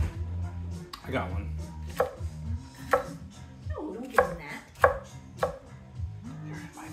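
Gyuto chef's knife chopping green bell pepper on an end-grain wooden cutting board: a sharp knock each time the blade meets the wood, about one a second at first, then three quicker cuts in a row.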